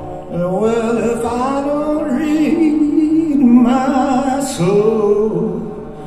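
Blues song played through Bowers & Wilkins 800 hi-fi loudspeakers: long, sliding, moaned sung notes over a low steady hum, with a new phrase starting a little after halfway.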